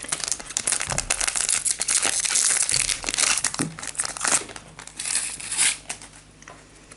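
Foil booster-pack wrapper of a Future Card Buddyfight trading-card pack crinkling and tearing open in the hands, a dense crackle that thins out near the end.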